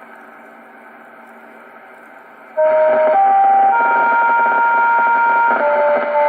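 Municipal disaster-prevention radio (bōsai musen) TOA outdoor loudspeakers play the evening time-signal chime. About two and a half seconds in, after a faint steady hum, the chime melody starts suddenly and loud: sustained electronic tones stepping from note to note, at times two notes together.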